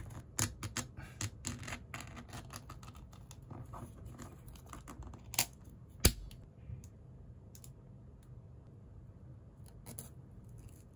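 Ring-pull lid being peeled off a full-open metal can: a quick run of scraping, crinkling clicks over the first few seconds. A sharp knock, the loudest sound, about six seconds in, then quieter handling.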